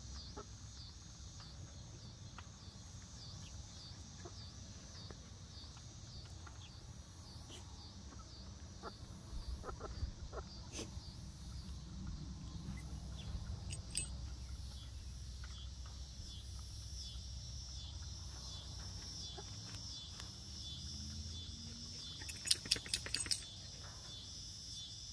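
Flock of young hens foraging in grass, with scattered soft taps and rustles and a quick run of sharp clicks about 22 seconds in, the loudest sound. A steady, pulsing chirr of insects runs underneath.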